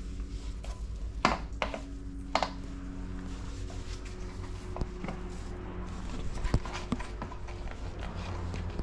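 Scattered light knocks and clicks, such as footsteps on a concrete floor, over a steady low hum.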